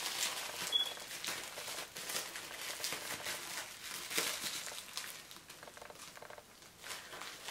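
Bubble wrap crinkling and crackling in the hands as a small camera is unwrapped from it: a dense run of small crackles that grows quieter near the end.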